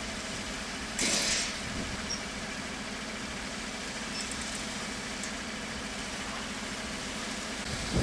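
Strong wind blowing steadily over a steady low hum, with a louder gust of hiss about a second in.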